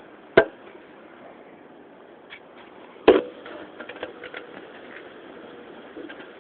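Strong hurricane wind gusting in a steady rush, with two sharp bangs, one about half a second in and a louder one about three seconds in, followed by a scatter of smaller knocks and rattles.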